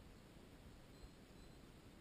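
Near silence: a faint steady hiss, with two very faint brief high tones about a second in.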